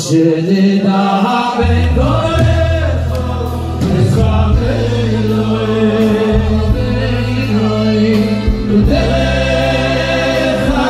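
Slow Hasidic niggun sung by two men into microphones through a sound system, with a group of men joining in. The voices hold long notes over steady low notes underneath.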